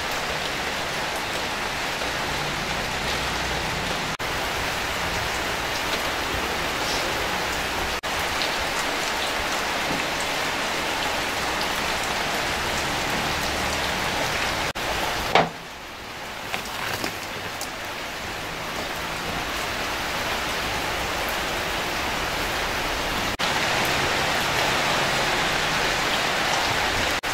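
Steady rain falling with scattered drop ticks. About 15 seconds in there is a sharp knock and the rain turns quieter, then it grows louder again about 23 seconds in.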